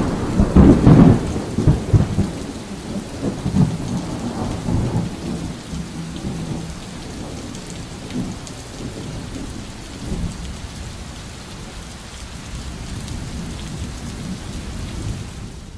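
Thunderstorm: rolling thunder, loudest in the first couple of seconds, then steady rain that slowly dies away.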